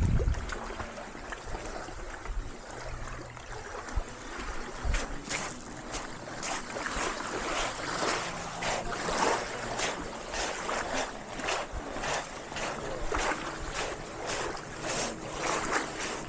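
Small sea waves washing on the shore, with a steady irregular crackle from about five seconds in; wind buffets the microphone in the first second.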